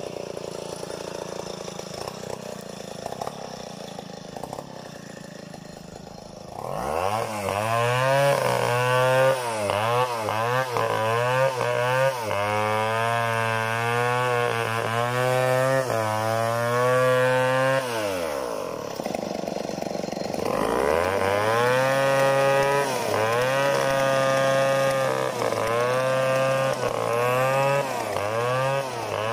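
Stihl 070 two-stroke chainsaw idling low, then revving up to full throttle about a quarter of the way in and ripping lengthwise along an acacia log, its engine note wavering as the load changes. Near two-thirds through it drops back briefly, then revs up and cuts on again.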